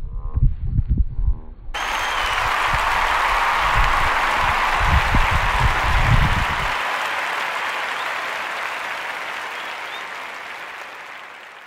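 Crowd applauding and cheering, cutting in suddenly about two seconds in and slowly fading out near the end. Before it, shouts of players and wind buffeting the microphone.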